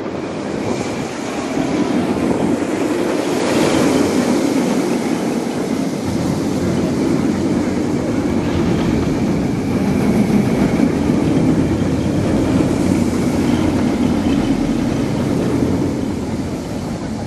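VelociCoaster, an Intamin launched steel roller coaster: a loaded train rumbling along the track as it passes close by. The sound builds about two seconds in and fades near the end.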